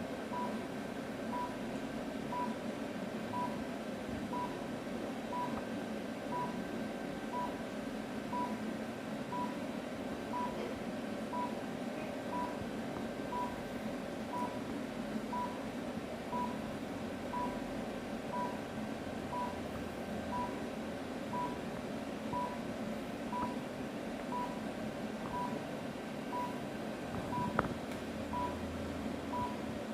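High-power therapy laser unit beeping about once a second while it emits, each a short steady beep of one pitch, over a steady hum. A single brief knock near the end.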